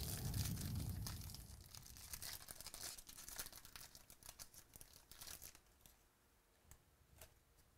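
Foil wrapper of a Bowman baseball card pack being torn open and crinkled, the crackle loudest in the first second or so. Scattered crinkles follow as the cards are drawn out, thinning to a few faint ticks near the end.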